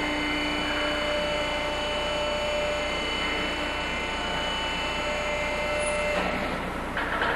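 Hydraulic telescopic dock leveler running: a steady hum with a faint whine from its hydraulic pump as the telescopic lip extends and lowers. The whine stops about six seconds in, and a knock follows near the end.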